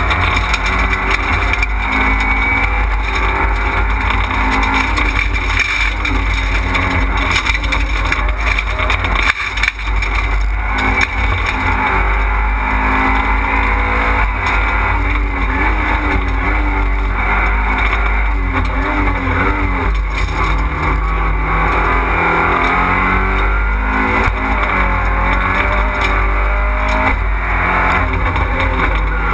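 Fiat Panda rally car's engine heard from inside the cabin at stage pace, its note rising and falling over and over as it accelerates hard, shifts and eases off for corners.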